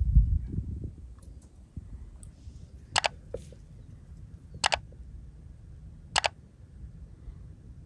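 Three sharp mouse-click sound effects, about a second and a half apart, from an animated subscribe-button overlay. They sit over a faint low background, and a low rumble dies away in the first second.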